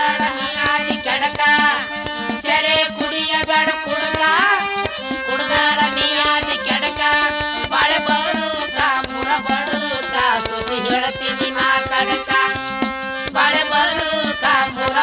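Instrumental interlude of a North Karnataka bhajana pada song: tabla keeps a steady rhythm under a melody line with frequent sliding, curving notes.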